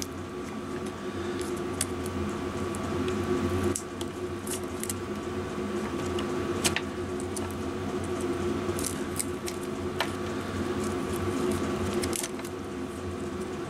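Small clicks and rustles of ignition wires and crimp terminals being handled and moved about, a few scattered ticks every second or so, over a steady hum.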